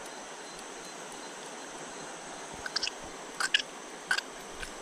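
Steady rush of river water, with a handful of short, sharp clicks in the second half.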